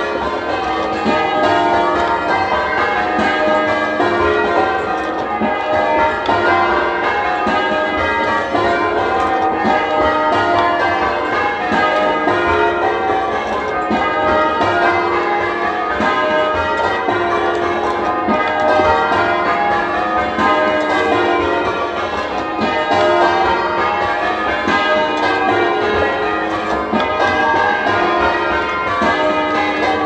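Change ringing on a heavy ring of ten church bells, tenor 19 cwt in E-flat, struck in a continuous even rhythm of overlapping bell strokes. The clapper knock is prominent on the back bells, and the bells sound slightly muffled.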